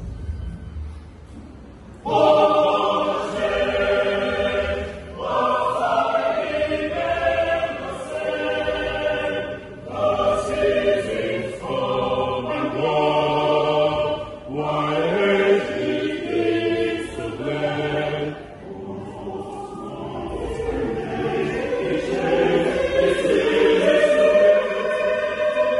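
Church choir singing together in phrases with short breaks between them. The singing comes in strongly about two seconds in, after a quieter moment.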